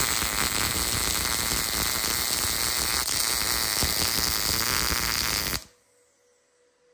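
MIG welding arc on thin square steel tube, a steady frying crackle that cuts off suddenly about five and a half seconds in as the weld bead is finished.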